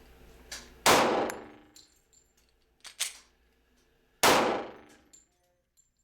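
Two gunshots from a Glock 36 .45 ACP pistol, about three and a half seconds apart, each with a long echo dying away, and a softer sharp crack in between.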